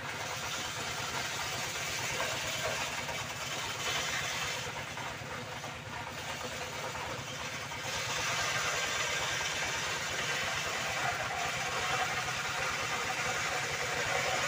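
Circular saw fitted with a worn, small-toothed blade, running steadily while sawing old reclaimed timber. It grows fuller and a little louder about eight seconds in.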